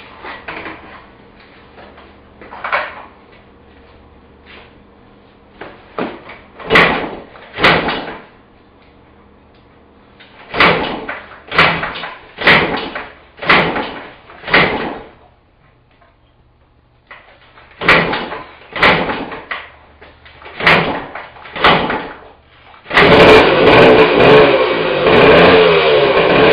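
Yamaha MX175 two-stroke single being kick-started: about a dozen kicks, each a short loud burst about a second apart, in three groups with pauses between. A few seconds before the end it catches and runs loudly.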